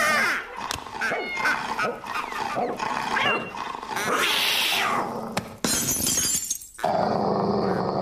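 Cartoon sound effects: a cat yowling and snarling among other short animal cries, with a sudden crash of something breaking a little past the middle.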